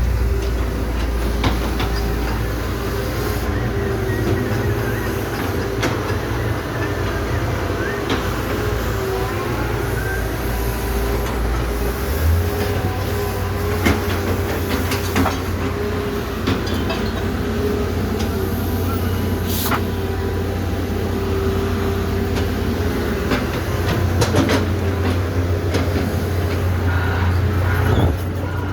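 Steady low mechanical drone with a held tone above it, a shift in the low drone about twelve seconds in, and scattered clicks and knocks throughout.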